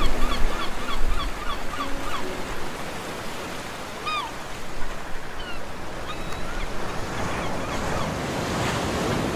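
Ocean surf washing on a beach: a steady rush that swells toward the end. Background music fades out in the first two seconds, and a few short chirps sound around the middle.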